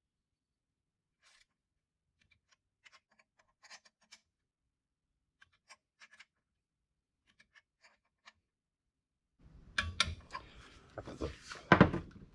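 Faint, scattered ratchet clicks from a socket wrench snugging the head-stud nuts on a VW Type 1 engine. About nine and a half seconds in, a louder clatter and rustle of tools being handled on the workbench takes over, loudest near the end.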